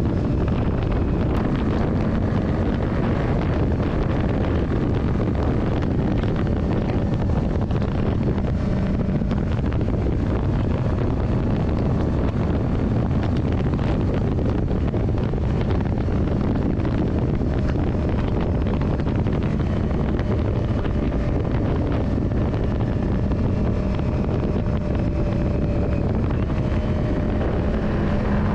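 Yamaha Drag Star 400's air-cooled V-twin engine running steadily, its note partly buried under heavy wind noise on the microphone.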